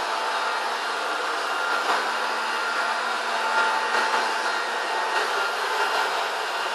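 Electric rotary floor-cleaning machine with a dry pad buffing carpet: a steady motor whine over a rushing hiss, with a few light knocks.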